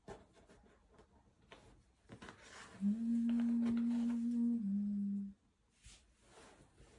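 A person humming a closed-mouth two-note "mm-mm": a steady note held for about a second and a half, then a slightly lower one, stopping a little after five seconds in. Faint clicks and taps of jigsaw puzzle pieces being handled sound around it.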